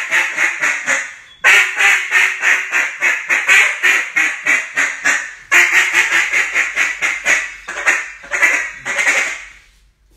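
A cutdown-style duck call blown hard in three fast runs of loud quacks, about five quacks a second, the last run trailing off near the end.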